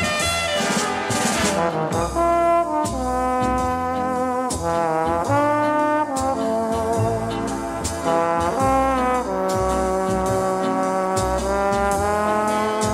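Big-band orchestra music from a 1968 easy-listening LP, led by a brass section playing sustained chords with scooped and falling notes.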